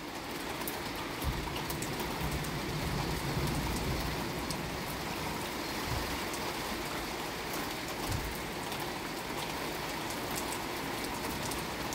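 Rain falling steadily, an even hiss of drops, with a low rumble building about a second in and fading by about four seconds.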